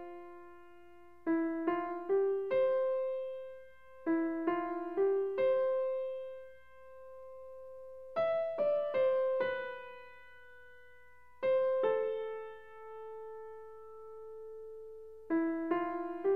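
Background piano music: short phrases of three or four notes, each left to ring out before the next.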